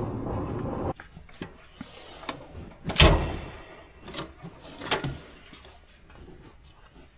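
A steady mechanical noise that cuts off abruptly about a second in, then a few sharp knocks, the loudest about three seconds in and two lighter ones over the next two seconds.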